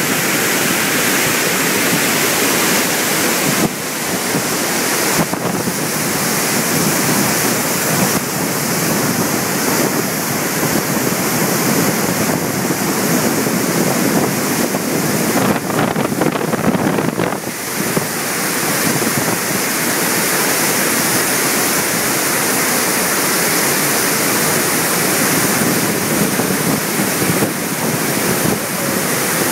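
Floodwater from heavy rain rushing through a dam on a swollen river: a loud, steady rushing noise.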